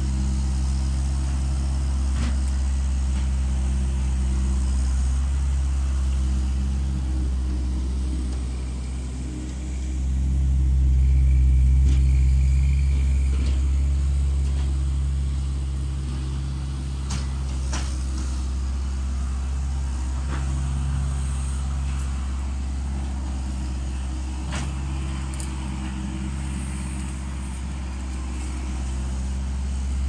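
Bobcat S175 skid steer loader's diesel engine running as the machine works, its drone swelling and easing, loudest about ten to thirteen seconds in. A few sharp knocks sound along the way.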